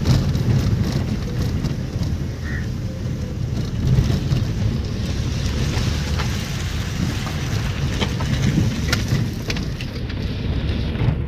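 Wind buffeting the microphone and road rumble from travelling in a moving vehicle: a loud, steady low rumble with a few light clicks.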